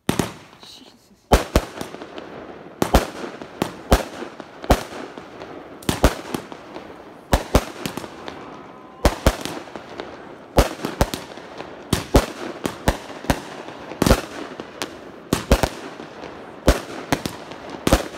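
Consumer fireworks firing a rapid string of shots. One sharp bang comes at the start, then after about a second a long run of sharp bangs follows, one or two a second, over a constant hiss as the shells launch and burst overhead.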